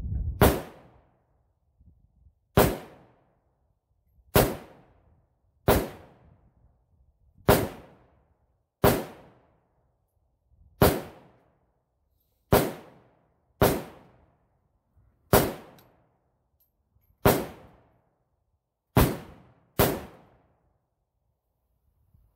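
AK-47-pattern rifle fitted with a muzzle brake, fired semi-automatically: thirteen single shots at an unhurried pace, one every one to two seconds, each sharp crack trailing off in a short echo.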